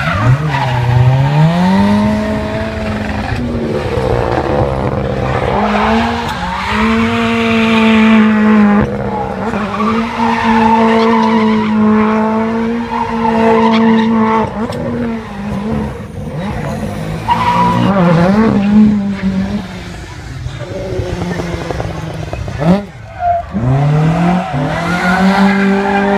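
Rally car engine held at high revs while the car spins donuts, its wheels spinning with tyre squeal. The revs climb near the start, hold steady for long stretches, fall away about two-thirds of the way through, and climb again near the end.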